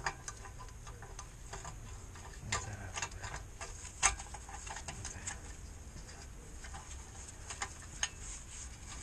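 Irregular light metallic clicks and taps from small brake parts being handled and fitted at a van's rear wheel hub, with the sharpest click about four seconds in.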